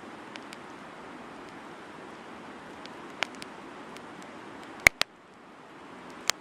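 Wood campfire burning with a steady hiss and a few sharp crackling pops, the loudest a quick double pop about five seconds in.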